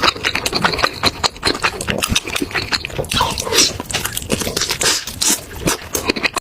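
Close-miked person eating: wet chewing with rapid, irregular mouth smacks and clicks.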